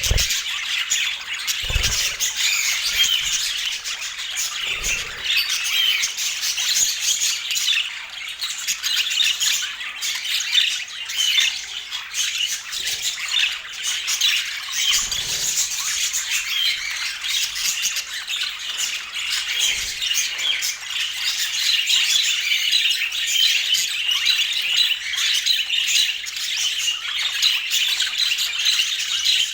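Budgerigars chattering and squawking continuously, many short high notes overlapping, with a few faint low thumps.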